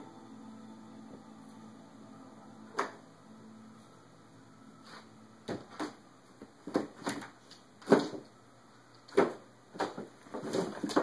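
Empty cardboard soda 12-pack box scraping and knocking on a tile floor as a cat pushes into it and paws at it. The scrapes and thumps come irregularly, about ten of them, mostly in the second half. A steady low hum sits underneath in the first few seconds.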